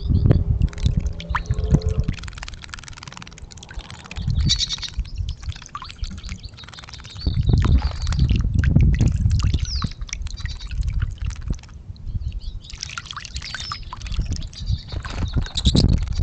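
Goldfinches splashing and bathing in a bird bath, with water dripping and short high chirps about four seconds in and again near the end. Repeated low rumbling bursts run underneath and are the loudest thing.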